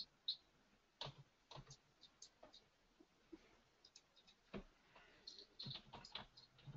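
Faint, irregular clicks of a computer mouse, short sharp ticks coming unevenly and more closely bunched in the second half.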